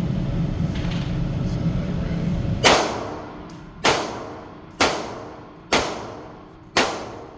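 Five gunshots about a second apart inside an indoor shooting range, each followed by a reverberant tail. A steady low rumble of range ventilation runs under the first few seconds.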